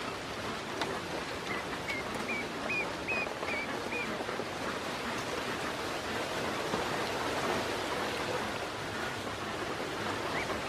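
Ducklings dabbling and splashing in a shallow basin of water, a steady wet, clicky patter of bills and feet. A quick run of about seven short, high peeps comes a second and a half in, and one more near the end.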